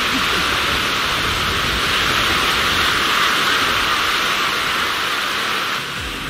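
Sea surf breaking and washing up on a sandy beach: a steady hiss of waves that cuts off near the end.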